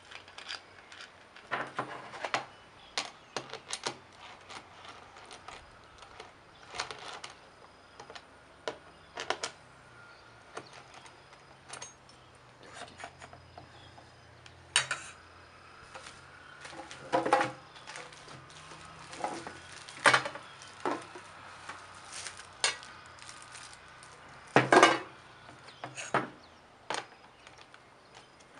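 Assembly handling sounds: scattered clicks, clinks and knocks of metal and plastic parts as a plastic blade guard is clamped onto a brush cutter's aluminium shaft, with small tools and bolts set down on a wooden table. A few louder knocks stand out about halfway through and near the end.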